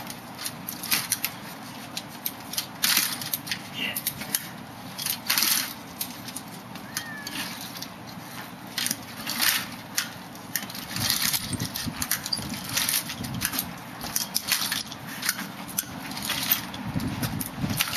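Front-wheeled walker moving over concrete: the wheels rolling, the tennis-ball back legs scraping and knocking as it is pushed forward, with shuffling steps. The scrapes come irregularly, one or two a second.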